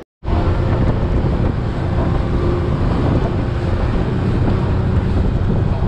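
Motorboat running at speed across choppy water: steady engine drone under hull and spray noise, with wind buffeting the microphone. It starts abruptly just after a brief cut-out.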